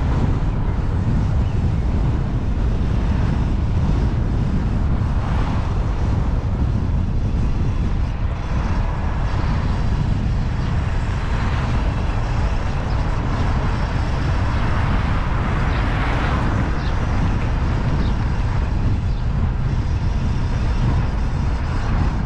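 Steady wind rush and road noise from a CSC City Slicker 3.2 kW electric motorbike being ridden at road speed, with a heavy low rumble of wind on the microphone.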